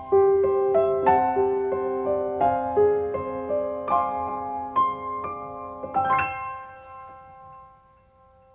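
Background piano music: a light melody of single struck notes over a held lower note, ending on a chord about six seconds in that rings out and fades away.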